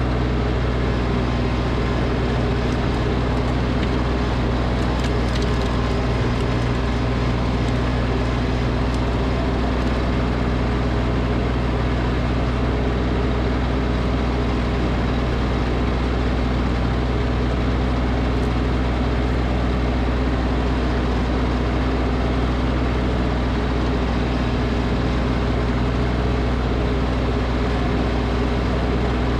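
Snowblower engine running steadily at a constant speed.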